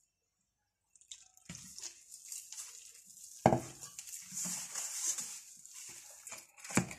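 A hand squeezing and stirring a wet flour batter in a plastic bowl, with irregular squelching and slapping and water being worked into the flour. Two louder knocks stand out, one about three and a half seconds in and one near the end. It starts after a second of silence.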